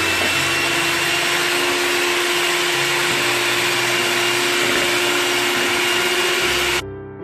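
Electric hand mixer running at one steady speed, its twin beaters whisking raw eggs in a bowl, with a steady whine over the motor noise. It cuts off suddenly near the end, leaving soft piano music.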